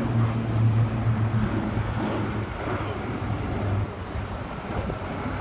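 Two four-engine turboprop transports, C-130 Hercules, flying past in formation, a steady low propeller drone that drops off a little about four seconds in.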